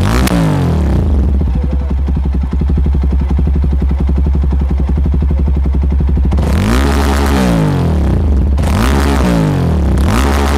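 Jawa 42 Bobber's 334 cc single-cylinder engine through an Offtrails Hyperstroke S1 Race full-system exhaust, falling from a rev at the start and then running steadily with a rapid, even exhaust beat. From about six seconds in it is revved up and back down three times.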